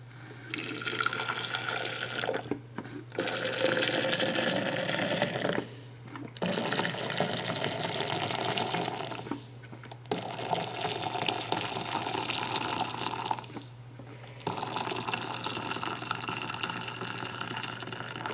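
Water poured into a glass French press over ground coffee. It comes in five pours with short breaks between them.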